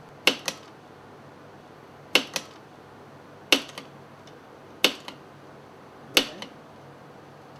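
Hand-pressed tubing cutter chopping plastic gene gun cartridge tubing into exact lengths: five sharp cuts about every second and a half, each a loud click followed by a lighter second click.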